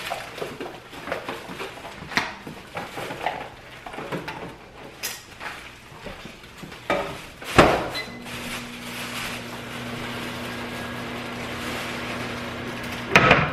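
Plastic container and chocolate pieces being handled, with scattered clicks and knocks. Seven or eight seconds in, a loud knock like a microwave door shutting and a short beep, then the microwave oven running with a steady hum. Another loud knock comes near the end.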